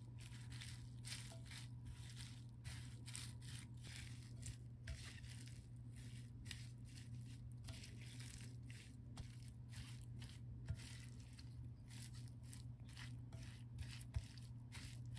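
A spatula tossing wild chives with chili flakes and sesame seeds in a glass bowl: faint, irregular rustling and squishing strokes, with a few sharper clicks.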